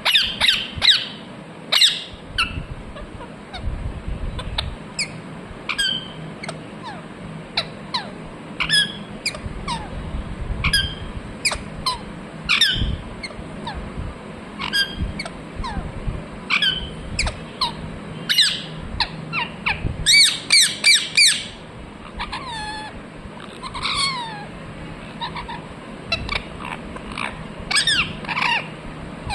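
Pet parrot calling with short, sharp squawks and chirps, one every second or so, with a quick run of calls about twenty seconds in.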